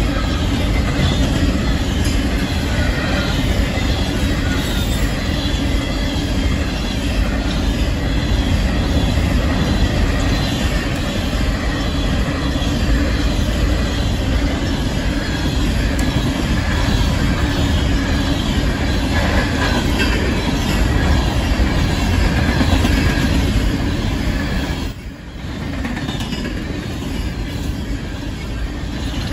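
Coal train's string of gondola cars rolling past at speed: a steady rumble of steel wheels on rail, briefly dropping in level near the end.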